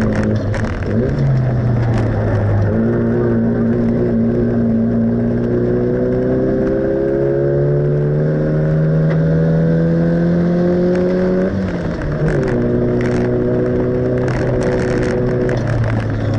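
The car's engine heard from inside the cabin while lapping a circuit. Its revs climb steadily for about eight seconds under acceleration, then drop sharply about twelve seconds in and run lower and steadier after.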